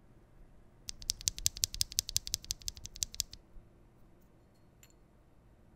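Fast typing on a Frog mechanical keyboard with lubed linear switches (Cream POM stems in Cherry Black Retool nylon housings) on an aluminium plate. A quick run of key clacks, about ten a second, starts about a second in and stops after a couple of seconds; two faint clicks follow.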